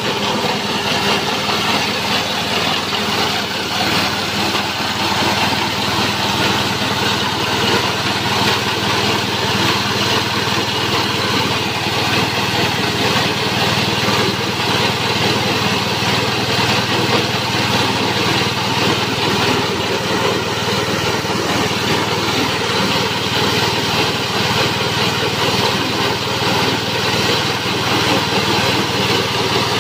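Small petrol engine running steadily at speed, driving a grass chopper's cutter as leafy green forage is fed through it.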